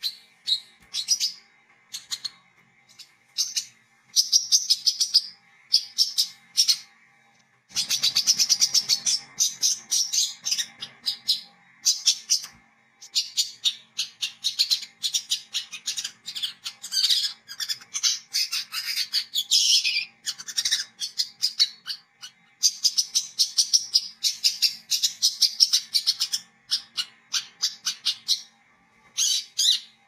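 Male olive-backed sunbird chattering in rapid, high-pitched twittering phrases, in runs of several seconds broken by short pauses.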